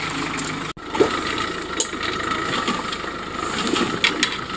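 Suzuki Jimny's engine running at low revs as it crawls over a rocky track, with a few sharp knocks scattered through. A brief break in the sound comes under a second in.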